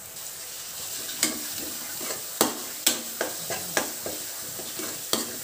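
Steel spatula stirring vegetables in a kadai, scraping and clinking against the pan about eight times from a second in, over a steady sizzle of frying in oil.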